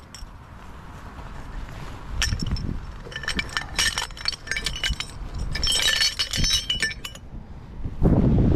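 Metal tube sections of a motorcycle jack clinking and clanking against each other as they are tipped out of their bag, in three short bursts of rattling with a brief metallic ring. Near the end, wind buffets the microphone with a loud low rumble.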